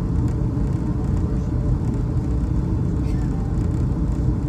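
Steady low cabin rumble of a Boeing 757-232 in flight, the airflow and Pratt & Whitney PW2037 turbofans heard from inside the cabin during the descent.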